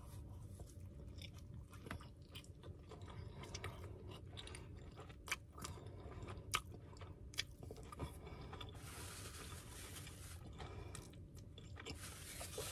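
A person biting into and chewing a soft pita taco filled with sautéed vegetables and hummus: quiet, wet chewing with a few small sharp clicks of the mouth.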